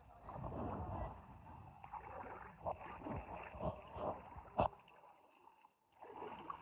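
River water sloshing and gurgling around a floating inner tube, with a few sharper splashes, the loudest about four and a half seconds in.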